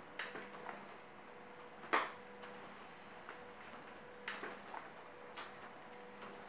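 HP Scanjet N9120 document scanner feeding paper through its automatic document feeder: a steady hum with irregular clicks and paper snaps as sheets are pulled in and ejected. The loudest snap comes about two seconds in, and a cluster of clicks follows a little past four seconds.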